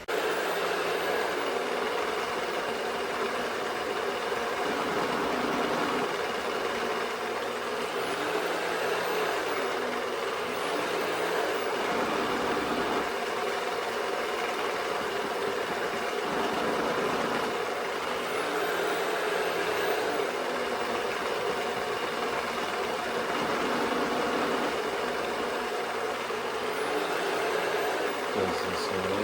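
Eureka robot vacuum running with a steady, loud whirring hiss of suction, starting abruptly.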